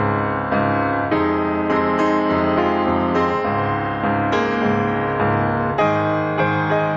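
Piano music, with new notes or chords struck about every half second.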